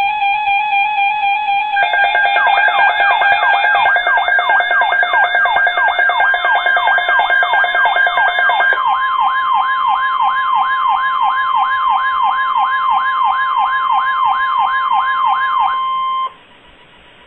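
Electronic emergency alert tones from a broadcast alert. A steady tone gives way, about two seconds in, to a fast siren-like wail sweeping up and down about twice a second. About halfway through a steady higher tone joins it, and both cut off abruptly near the end, leaving faint hiss.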